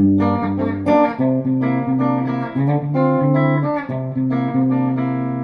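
Telecaster electric guitar with flatwound strings, played clean through a Quilter Aviator Cub amp: a short phrase of picked single notes over held bass notes, ringing on until it stops near the end.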